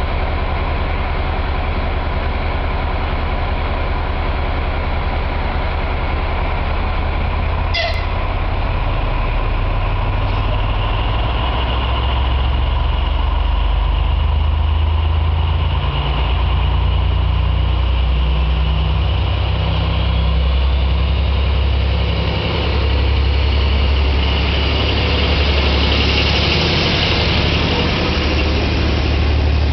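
MÁV M41 diesel-hydraulic locomotive's V12 diesel engine running loudly and rising in pitch as it pulls away from standstill with its train, then passing close by near the end with a brighter, hissing edge. A sharp click about eight seconds in.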